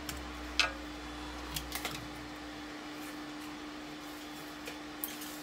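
A few light clicks and knocks of dry twigs being handled and laid on sand in a glass terrarium, over a steady low hum.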